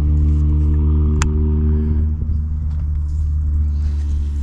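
A steady low motor drone, like an engine running at a constant speed, with a single sharp click about a second in.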